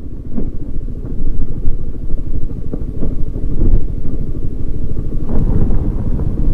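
Motorcycle running under way, a steady engine and road rumble as it is ridden along a rough mountain road.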